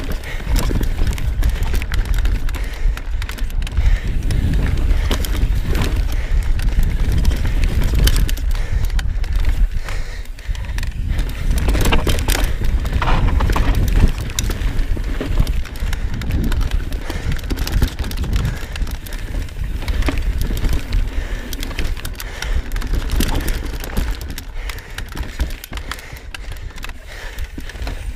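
Knolly Fugitive LT mountain bike ridden fast down a dirt and rock singletrack: tyres crunching over the trail, with the chain and frame clattering over bumps in many short knocks. Wind rumbles low on the GoPro's microphone throughout.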